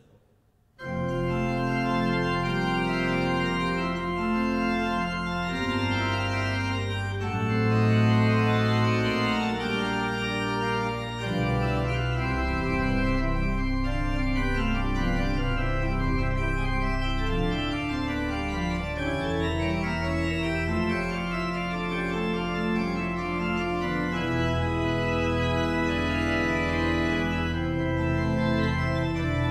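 Church pipe organ playing the closing voluntary after the service: full, sustained chords over a deep pedal bass, starting suddenly about a second in.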